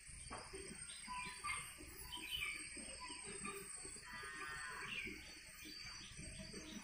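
Marker pen drawing on a whiteboard: faint scratching strokes with short squeaks, and one longer squeak about four seconds in.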